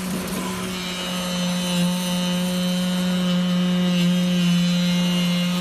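CNC knife cutting machine running while its knife head cuts through ceramic fibre blanket: a steady buzzing hum with a rasping edge.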